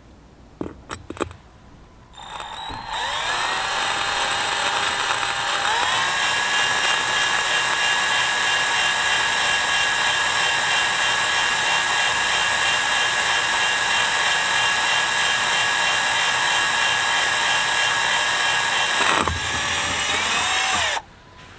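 Cordless drill motor running as the bit bores a hole through a ceramic tile in low gear. It starts about two seconds in, picks up speed twice in the first few seconds, runs steadily, then slows and stops near the end.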